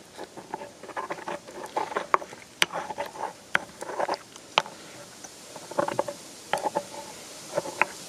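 Pestle tapping and scraping in a mortar, working crushed garlic with salt and olive oil: quick, irregular clusters of light taps and short scrapes, with a brief lull about five seconds in.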